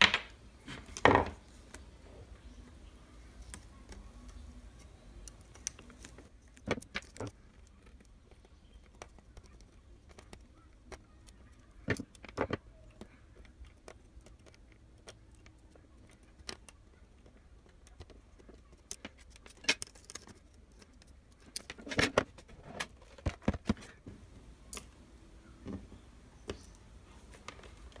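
Scattered small clicks and taps of tweezers and a soldering iron against an LED circuit board and tabletop while surface-mount LEDs are being desoldered and replaced; irregular, a few louder than the rest.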